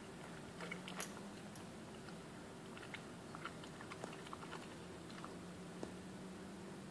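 Czechoslovakian wolfdog chewing and gnawing on an object, with scattered soft crunching clicks, the strongest about a second in, over a faint steady hum.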